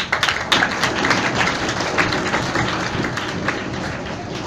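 Audience applauding, many hands clapping at once, fading slightly toward the end. It is heard over a video call.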